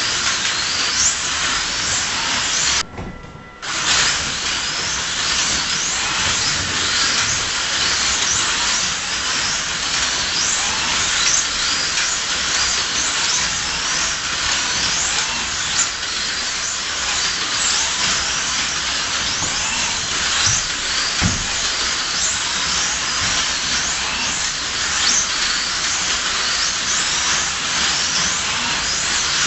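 1/24-scale slot cars racing on a multi-lane track, their small electric motors whining in many quick rising and falling sweeps as they speed up and slow down around the circuit. The sound cuts out briefly about three seconds in.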